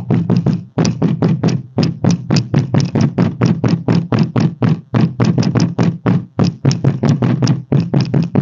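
Rapid hand knocks on the loose inner rear cover panel of a 2016 Renault Fluence, about four to five a second in short groups, each with a hollow, rattling resonance. The noise comes from the loose inner panel vibrating, the same noise it makes when the car goes over a pothole.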